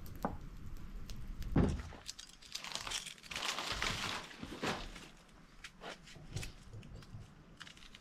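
Dry crinkling and tearing with small clicks, from hands peeling the skin off a vegetable; the crinkling is densest for about two seconds near the middle. Before it, a low rumble and one dull thump about a second and a half in.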